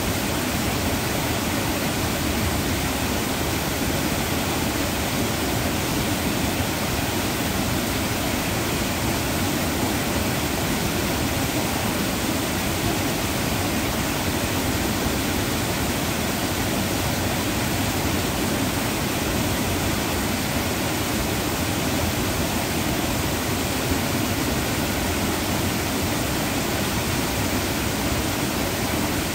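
Water spilling over a small dam and rushing over the rocks of the stream below, a steady, unbroken rush.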